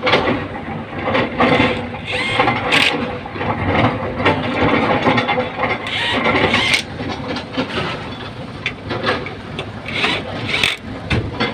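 Excavator's diesel engine running, with irregular knocks and metallic clatter throughout.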